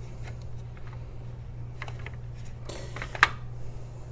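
Light clicks and a brief rustle of hard plastic being handled and pried as a motherboard's rear I/O panel cover and MOSFET heatsink are worked loose, with one sharp click about three seconds in. A steady low hum underlies it.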